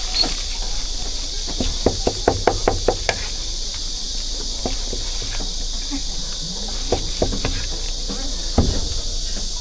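Cleaver chopping meat on a wooden board for roujiamo filling: a quick run of about five sharp knocks a couple of seconds in, then a few single chops later, over a steady high-pitched hiss.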